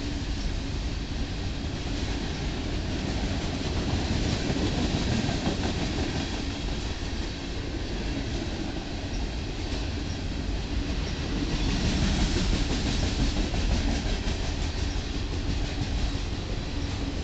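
Union Pacific coal train's hopper cars rolling past close by: a steady rumble and clatter of steel wheels on the rails, with faint clicks over the rail joints, growing slightly louder about twelve seconds in.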